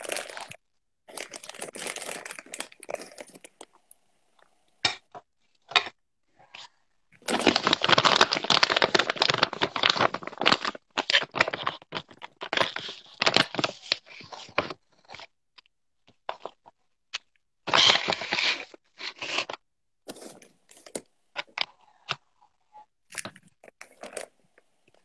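Crinkling and rustling of plastic snack packaging as chocolate chips are taken out and handled. It comes in several bursts, the longest lasting a few seconds about a third of the way in, with scattered taps and clicks between.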